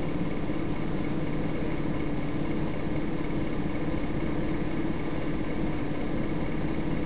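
A steady low hum with hiss, unchanging throughout.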